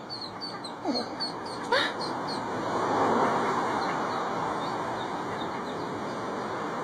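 Ducklings peeping: a run of short, high, rising cheeps, thickest in the first couple of seconds and thinning after. A broad rushing noise swells about three seconds in, then slowly eases.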